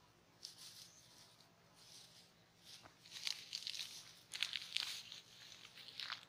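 Dry straw bedding rustling and crackling as a puppy and a calf lying in it shift and paw at each other: irregular crackly bursts, heaviest a few seconds in.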